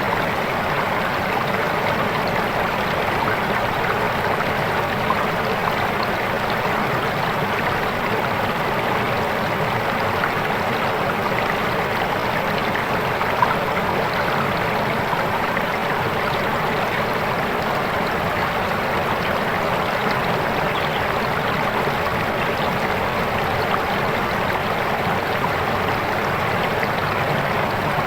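Fast, clear river water rushing and babbling over rocks in a steady, unbroken wash.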